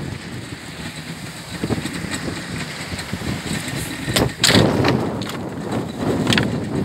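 Wind buffeting the microphone and sea water washing against the hull of a small open fishing boat, with a few sharp knocks about four seconds in and again near the end.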